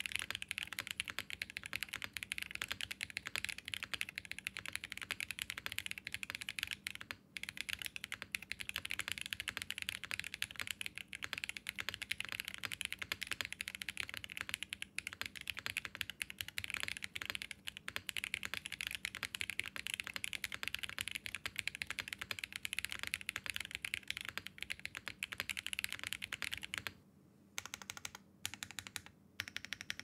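Fast, continuous typing on a Mode Envoy 65% mechanical keyboard with Keebzncables Ice Kachang tactile switches, a POM plate, a polycarbonate case, no foam and GMK Blot keycaps: a dense run of key clacks. Near the end the typing stops, then comes back as a few short bursts of keypresses.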